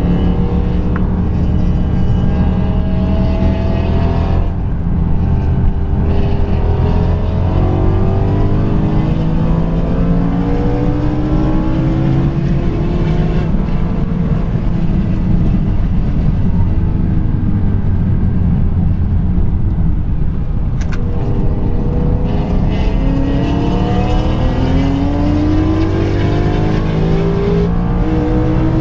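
BMW M3 E92's V8 on a custom valved exhaust, heard from inside the cabin under hard acceleration on track. Its pitch rises through the revs and drops back at each upshift, several times over.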